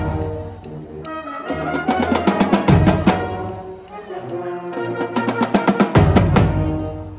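High school marching band playing: trumpets and other brass holding chords over a drumline of snare, tenor and bass drums. Heavy low hits land at the start, about three seconds in and about six seconds in.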